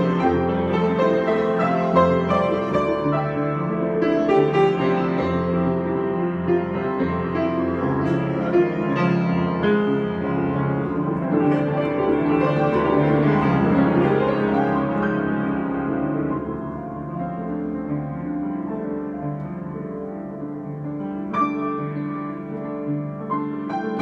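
Solo grand piano improvisation, full and dense at first, then softer from about two-thirds of the way through, with a few bright high notes struck near the end.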